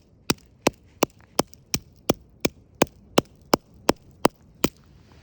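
Hammer striking a plastic alarm clock in a fast, even series of hard blows, nearly three a second, stopping shortly before the end.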